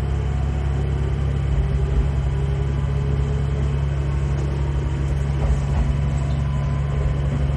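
Diesel railcar engine running steadily, a low drone.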